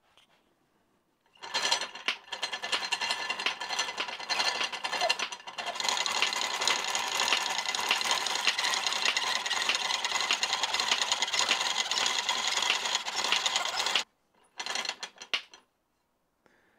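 Early-1900s treadle-driven scroll saw running, its blade rattling rapidly up and down as it cuts a circle out of a thin butternut board. The rattling starts about a second and a half in, runs steadily, stops abruptly near the end, and gives one short last burst.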